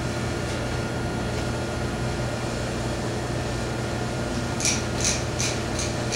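Hand pepper mill being twisted to grind pepper: about five short grinding strokes, a little over two a second, starting more than four seconds in, over a steady background hum.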